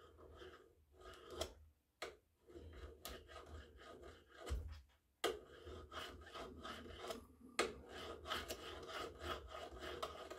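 Steel card scraper being burnished in a vise: the smooth shank of an old drill bit rubbed along its edge in short, irregular strokes, steel scraping on steel to turn over the hooked cutting edge. Faint, with a few sharper clicks among the strokes.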